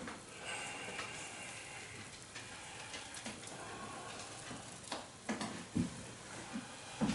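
Steady hiss and soft bubbling of a pot of broth simmering on a gas burner, with dripping and a few light knocks as a boiled beef tongue is lifted out of it on a fork.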